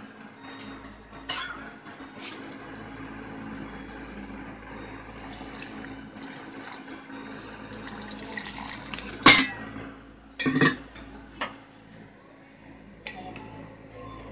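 Steel bowl and utensils clinking and knocking, with a few sharp clinks, the loudest a little past the middle, while water is poured into the bowl from a plastic bottle partway through.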